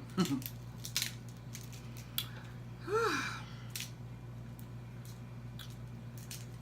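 Eating sounds at close range: scattered sharp clicks and cracks of crab legs being handled and chewed, with a short hummed 'mm' about three seconds in, over a steady low hum.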